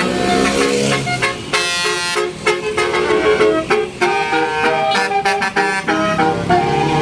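A tour bus's 'telolet basuri' musical air horn playing a fast tune, a string of short horn notes that jump between pitches.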